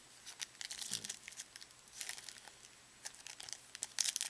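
Foil trading-card pack wrapper crinkling and tearing open, with the cards inside being handled, in repeated short bursts of rustling.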